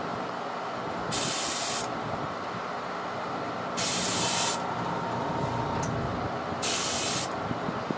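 Airbrush spraying paint in three short bursts of hiss, each well under a second long, about a second, four seconds and six and a half seconds in.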